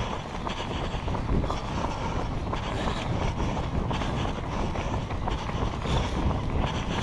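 A runner's footfalls heard through a headband-mounted GoPro Hero 3+, under steady wind rumble on the microphone.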